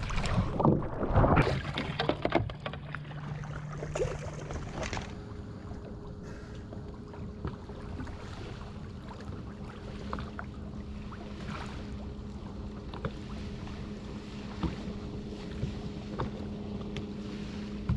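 Splashing and knocking for the first couple of seconds as a diver slips off a small boat into the water. Then water lapping against the boat with a steady low hum underneath.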